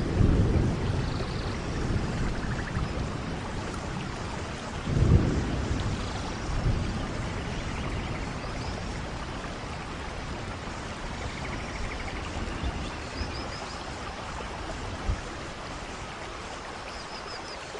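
A rainstorm: steady rain with low rolls of thunder, one at the start, the loudest about five seconds in and a weaker one shortly after. The storm grows gradually quieter toward the end.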